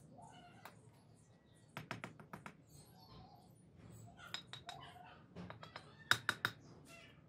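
A steel bricklaying trowel tapping clay bricks into wet mortar as they are set on a course. It comes in three quick runs of sharp taps, about two, four and a half and six seconds in, and the last run is the loudest.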